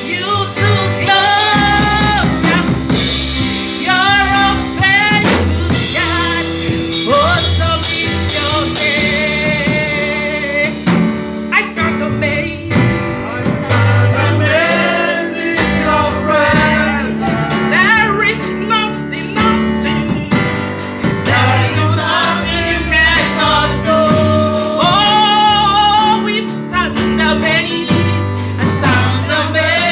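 A woman singing a gospel worship song into a microphone over a backing track with drums.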